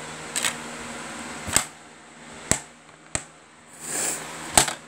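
A DVD disc and its plastic case handled on a wooden desk: about five sharp plastic clicks and knocks, with a brief rustle near the end, over a faint steady hum.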